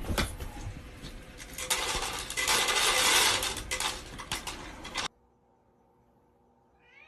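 Dense rattling and clattering, like small hard objects knocking together, for about five seconds, then it cuts off suddenly.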